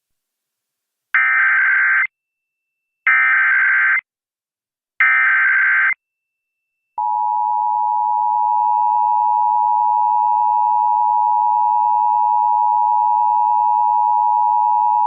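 Emergency Alert System activation: three one-second bursts of SAME header data, each a buzzing digital warble, about a second apart, then the steady two-tone EAS attention signal from about seven seconds in. It announces a National Weather Service severe thunderstorm warning.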